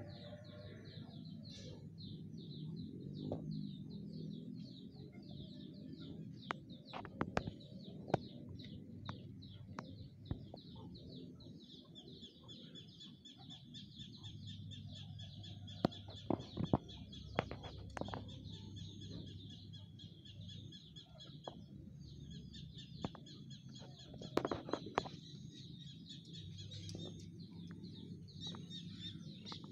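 Birds chirping, with a rapid high trill running through much of it, and a few sharp clicks now and then.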